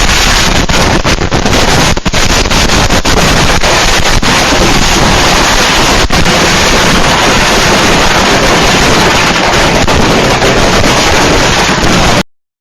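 Fireworks going off nonstop: a very loud, steady rush of crackling with many sharp pops, which cuts off suddenly near the end.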